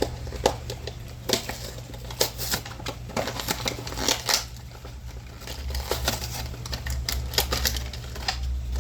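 Irregular sharp clicks, snaps and crinkles of a toy car's box packaging being handled and opened, over a steady low hum.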